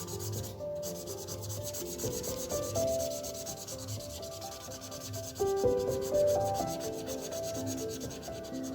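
Felt-tip sketch pen rubbed quickly back and forth on paper, colouring in an area with many short scribbling strokes. Soft background music plays underneath.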